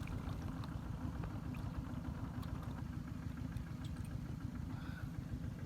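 A small engine running steadily at an even idle, a low rumble with a fast flutter, with a few faint ticks over it.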